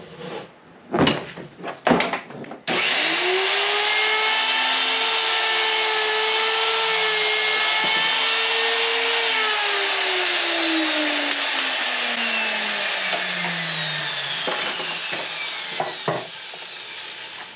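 Electric miter saw started about two and a half seconds in after a few knocks of the board being set. Its motor whine holds steady for about seven seconds through the cut, then the blade spins down with a smoothly falling pitch over about five seconds. A couple of clicks come near the end.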